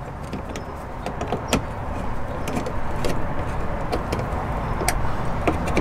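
Ratchet and Torx socket clicking lightly and irregularly as the bracket bolt is turned in by hand, over a steady low rumble.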